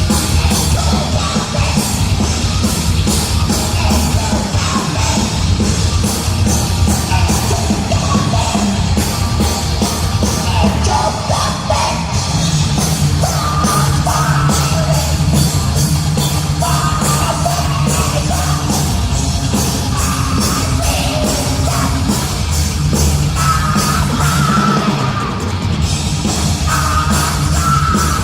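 Heavy metal band playing live: distorted guitars, bass and fast, dense drumming, with shouted vocals coming in about ten seconds in.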